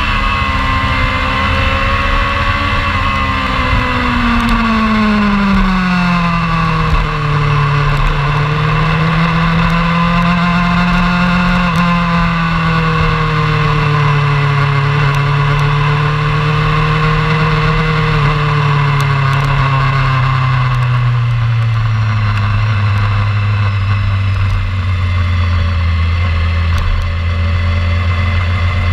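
Motorcycle engine running at fairly low revs, its pitch rising and falling gently and then dropping steadily as the bike slows to a low, steady run, with wind noise over the microphone that thins out about two-thirds of the way through.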